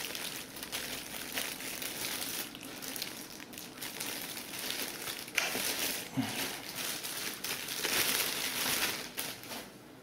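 Clear plastic bag crinkling as a robot vacuum's charging dock is handled and unwrapped by hand. The crinkling stops just before the end.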